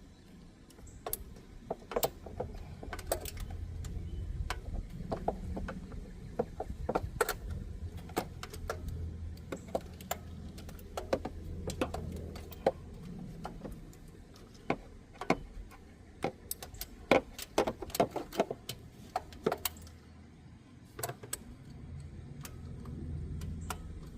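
Metal hand tools clinking and clicking: sockets and an extension being fitted onto a ratchet wrench, in irregular taps and short quick clusters. A low hum runs underneath, fading for a few seconds past the middle and returning near the end.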